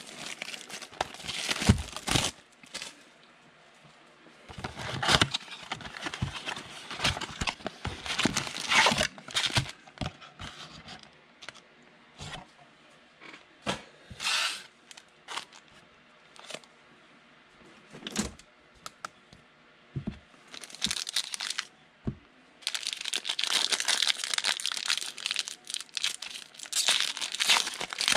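Foil-wrapped Donruss football card packs being handled and torn open: irregular crinkling and tearing with a few sharp clicks. A quieter stretch with only scattered clicks falls mid-way, and steady crinkling returns over the last five seconds as a pack is ripped open.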